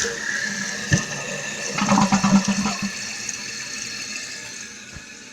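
Toilet flushing: water rushing and gurgling, with a sharp knock about a second in, then slowly dying down to a quieter steady rush of water.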